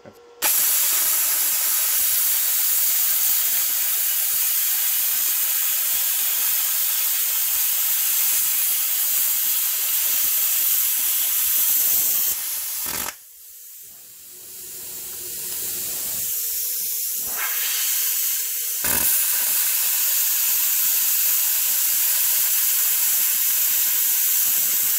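Plasma cutter cutting through a steel car subframe: a loud, steady hiss that starts abruptly. It cuts out about halfway through, leaving a quieter hiss for several seconds, then starts again with a click and runs on.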